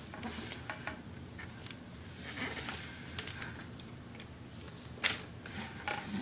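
Plastic toys being handled and moved on a hard surface: scattered light clicks and soft rubbing, with a sharper knock about five seconds in.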